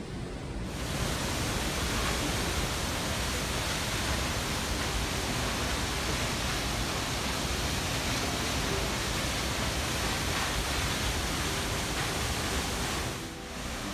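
Tall waterfall's steady rush of falling water, coming in about a second in and dipping briefly near the end.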